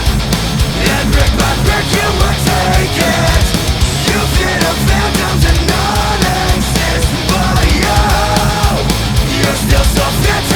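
Loud heavy rock music with distorted guitars, a driving bass and drums, and a singing voice.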